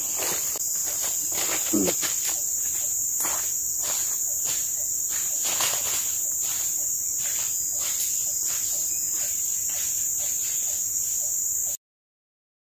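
Steady high-pitched drone of a forest insect chorus, with soft regular footsteps crunching through leaf litter. The sound cuts off abruptly near the end.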